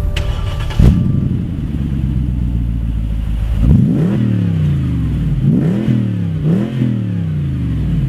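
Mercedes G550's 5.5-litre naturally aspirated V8 starting with a loud burst about a second in and idling. From about four seconds in it is revved three times, each rev rising and falling back to idle.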